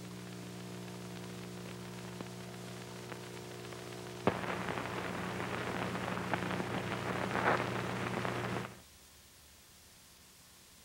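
Noise from a worn old film soundtrack transfer: a steady hum under hiss, then a click about four seconds in starts a louder crackling static that cuts off abruptly near nine seconds, leaving only faint hiss.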